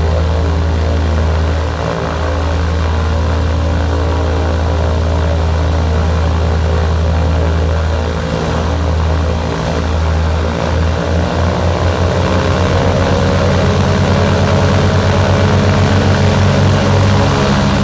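De Havilland Devon's Gipsy Queen inverted six-cylinder piston engines running on the ground with propellers turning, a steady deep drone. From about ten seconds in the note starts to beat and rises a little in pitch and loudness as the revs creep up.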